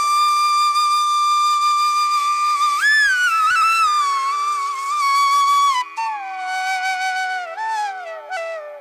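Background music: a flute playing a slow melody of long held notes with slides and bends between them, over a steady drone.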